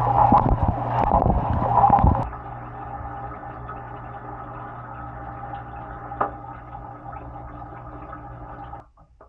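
Dishwasher running, heard from inside the tub: water spraying and sloshing over a steady motor hum. About two seconds in, the spraying stops and the quieter hum of the pump motor runs on, then cuts off near the end.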